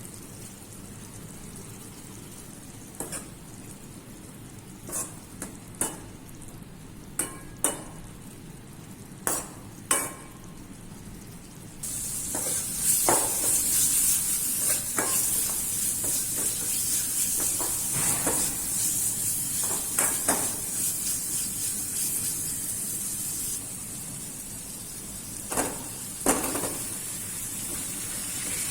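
Cooking in a pan of hot oil: a metal spoon clicks and taps against the pan several times, then about twelve seconds in a loud sizzle starts suddenly and carries on while the food is stirred, with a couple more spoon knocks near the end.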